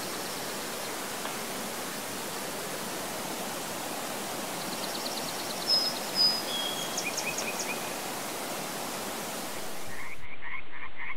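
Creek water flowing steadily, with a songbird giving a few short high trills and whistled notes about halfway through. Near the end the water gives way to a chorus of frogs croaking in quick repeated calls.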